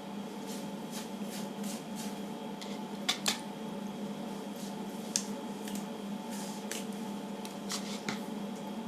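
Faint handling sounds of hair mask being worked into hair: soft rustles and a few sharp clicks, the loudest a pair about three seconds in, over a steady low hum.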